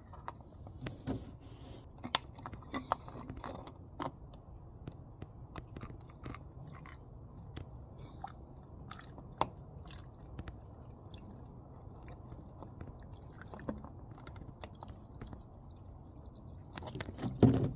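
Car snow foam poured from a large plastic jug through a cut-off water-bottle top into a small plastic bottle: a steady low rush of liquid, with frequent small clicks and crinkles from the thin plastic bottles being held and pressed.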